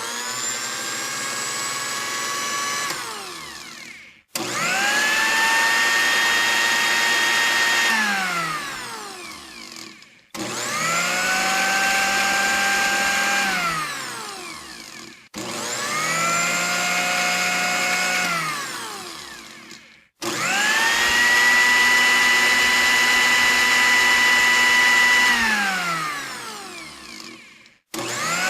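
Electric kitchen blender motor switched on and off five times: each run starts with a whine rising to a steady high pitch, then winds down with falling pitch when switched off. The steady pitch differs a little from run to run.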